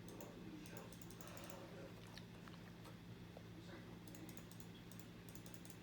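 Old 42-inch hugger ceiling fan running: a faint, steady motor hum with scattered light clicks and ticks.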